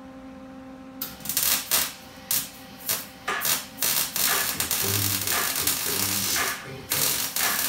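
MIG welder arc crackling and hissing on steel tubing: a few short bursts starting about a second in, then a continuous run of welding, over music with a steady beat.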